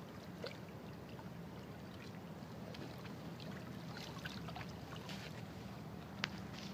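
Small waves lapping and splashing faintly against the rocky harbour edge, over a steady low hum, with one sharp tick about six seconds in.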